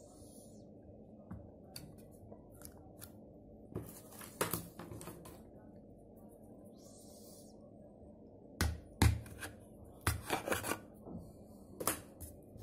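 Handling noise from a plastic engine-oil bottle and its foil seal: scattered sharp clicks, taps and crinkles, loudest in clusters around nine and ten seconds in.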